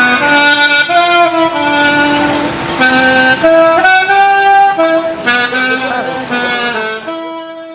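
Loud horn tones, several at once, shifting between pitches every half second or so over a noisy background, fading out near the end.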